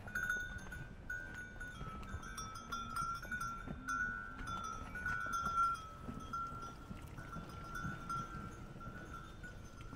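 Small bells jingling steadily, a continuous ringing that shifts slightly up and down in pitch, typical of bells on livestock or pack animals.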